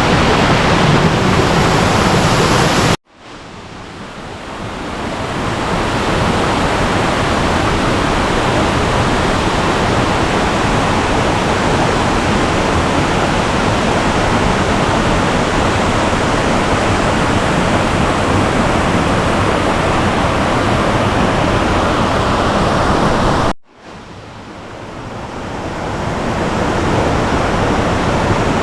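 Waterfall rushing loudly and steadily, heard close up from the bottom of the falls. It cuts out abruptly twice, about three seconds in and near the end, each time swelling back up over a few seconds.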